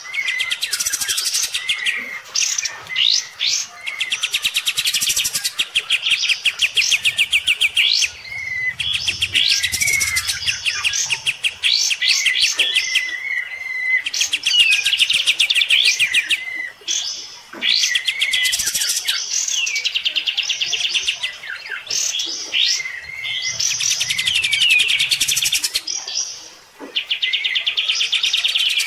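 Kapas tembak songbird singing hard in long, fast, high chattering phrases, one after another with short breaks and a few quick sweeping notes between them: aggressive song aimed at a rival kapas tembak nearby.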